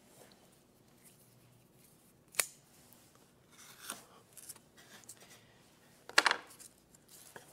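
Double-sided carpet tape being worked off its roll and cut with a knife. There is a sharp click about two and a half seconds in, small scraping cuts around four seconds, and a louder short rasp a little after six seconds.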